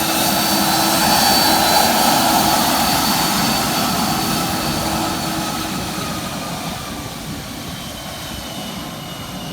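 Cessna Citation business jet's turbofan engines, a loud roar with a high turbine whine, loudest about a second or two in and then fading as the jet moves away, the whine sliding slowly lower.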